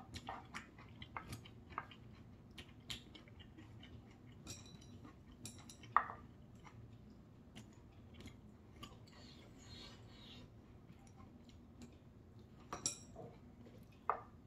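Quiet eating sounds: chewing, with a wooden spoon and wooden chopsticks clicking and scraping against a ceramic plate and side-dish bowls in scattered sharp clicks, the loudest about six seconds in.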